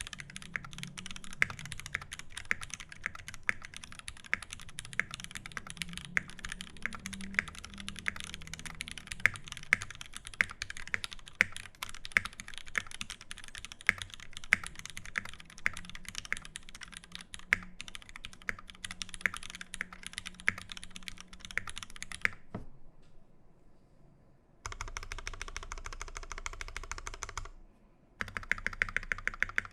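Fast, continuous typing on a custom mechanical keyboard with lubed Cherry MX Vintage Black linear switches, a brass plate and GMK keycaps: a dense run of key clacks. About two-thirds of the way through the typing stops briefly, then resumes over a steady background hiss.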